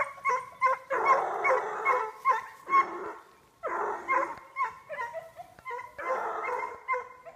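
Young hunting dogs barking and yelping in runs of short, high-pitched calls, several a second with brief pauses: hounds giving tongue while being started on wild boar.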